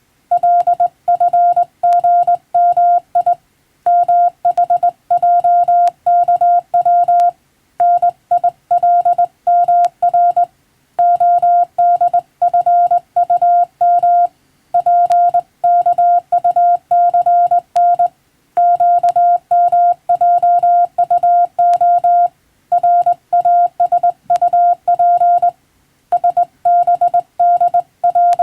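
Morse code: a single steady tone keyed on and off in dots and dashes at a brisk sending speed, with a short break every few seconds between groups.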